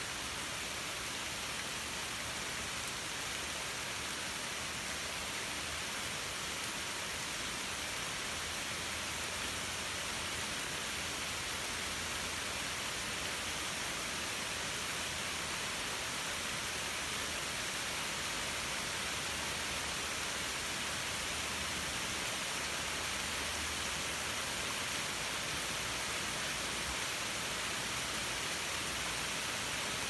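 Steady rain falling through leafy trees, mixed with a running brook, making an even hiss.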